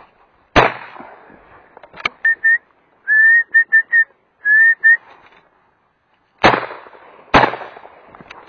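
Shotgun fired three times: once about half a second in, then two shots about a second apart near the end. Between them, a run of short, slightly rising whistled notes.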